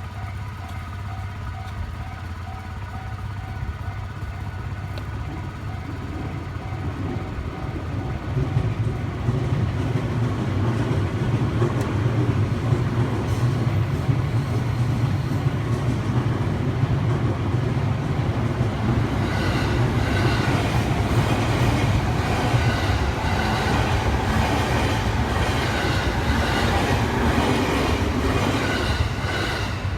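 Electric commuter train passing over a level crossing, a low rumble building from about eight seconds in, with wheels clattering on the rails growing louder in the second half and easing off near the end. At the start the crossing's warning bell is ringing with a steady tone.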